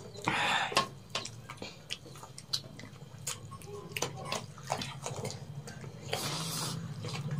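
Close-miked eating by hand: wet squishing of rice and curry kneaded between the fingers, with many short sharp clicks and lip smacks from chewing. A low steady hum sits underneath.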